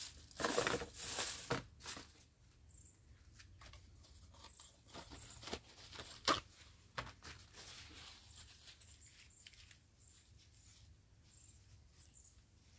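Aluminium foil crinkling as it is pressed and crimped over a disposable foil pan, loudest in the first two seconds, then faint rustling and a few sharp clicks.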